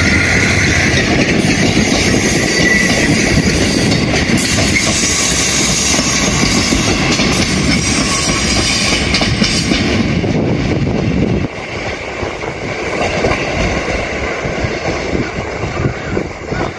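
Multi-car diesel railcar train, including a KiHa 54, running past close by and on down the line. The loud low rumble drops suddenly about 11 seconds in as the train moves away.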